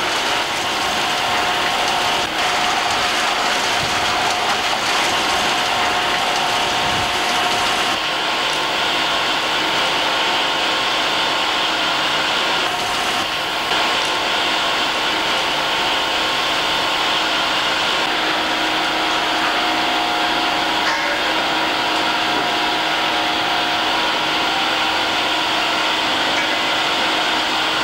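Rock drilling rig running in a tunnel: a loud, steady mechanical noise with a constant whining tone, easing slightly a couple of times.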